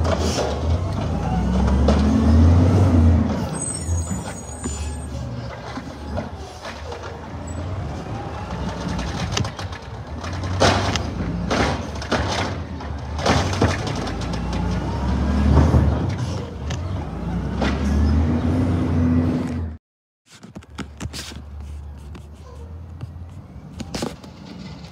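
Natural-gas automated side-loader garbage truck working its lifting arm: the engine revs up and falls back as the hydraulic arm lifts, tips and lowers a trash cart, with several loud bangs of the cart against the truck and the curb. The sound cuts off about four-fifths of the way through, leaving quieter street sound.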